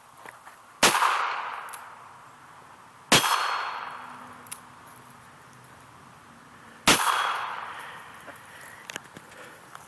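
Three .22 pistol shots fired at a steel sword blade, spaced a couple of seconds and then nearly four seconds apart. Each crack is followed by a ringing tail that fades over about a second.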